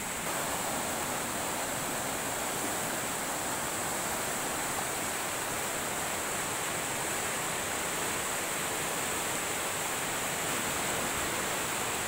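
Swollen river in flood, muddy water rushing fast over rocks: a steady, unbroken rush of water.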